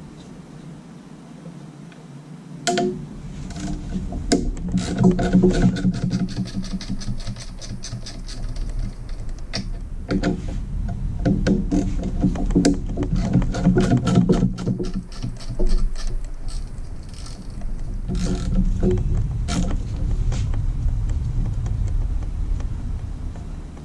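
Hand ratchet and socket clicking in quick runs as bolts are unscrewed by hand from the underside of an engine block. Single metallic knocks of tools and parts come between the runs.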